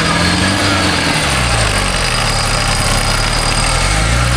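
Engine of a modified short-wheelbase 4x4 trials vehicle revving up and down as it crawls over rocks, its pitch rising and falling several times and pulling harder about a second and a half in.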